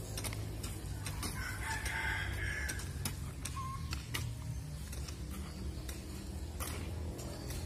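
A hoe blade chopping into loose soil, sharp strikes about a second apart. A rooster crows once in the background from about a second and a half in.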